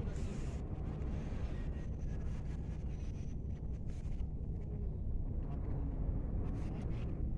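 Steady low rumble of a boat engine running, with wind noise on the microphone.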